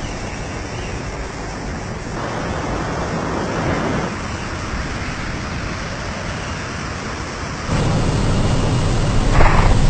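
Steady rush of air through an open aircraft door with the plane's engine underneath, heard from inside the cabin; it gets louder about eight seconds in.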